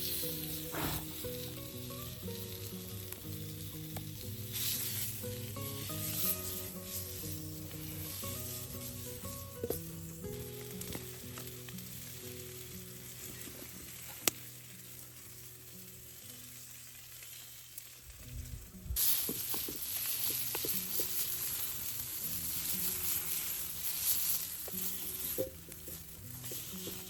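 Food sizzling and frying in a pan over a log-stove fire, the sizzle louder again from about two-thirds of the way in, with soft background music underneath. One sharp click comes about halfway through.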